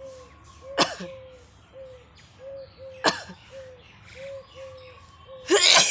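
A person sneezing: three sudden bursts, about a second, three seconds and five and a half seconds in, the last the longest and loudest. Behind them, short calls repeat a few times a second with high chirps, as of birds.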